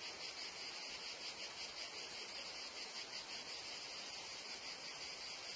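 Meadow insect chorus of cicadas and crickets: a steady, dense, high-pitched shrilling with a fast pulse running through it.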